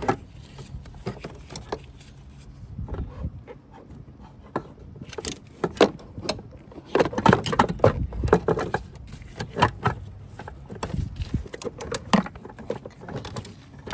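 Hand tools and metal parts clinking and knocking, in irregular clusters of sharp clicks with quieter gaps, as brake-line fittings and the master cylinder are worked loose.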